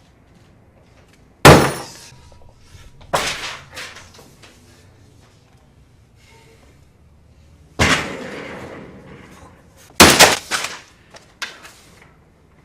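A series of loud crashes and bangs, about five in all, with the sound of things breaking; the crash about two-thirds of the way through trails off for about a second, and the last ones come in a quick cluster.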